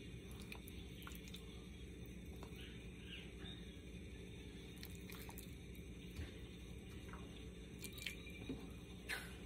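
Faint wet squishing and soft clicks of raw chicken breast pieces being picked up by hand, over a steady low hum.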